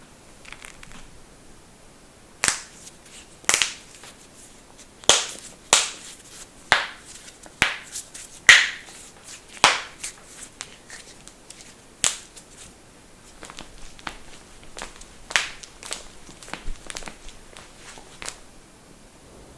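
A series of sharp joint cracks and pops as human joints are manipulated, about fifteen single cracks at irregular intervals beginning about two and a half seconds in. The loudest comes a little under halfway through.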